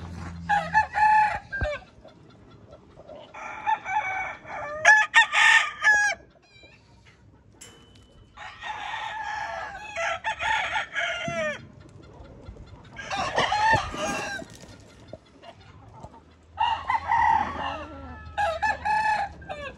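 Gamecock roosters crowing in about five bouts, several birds overlapping and answering one another.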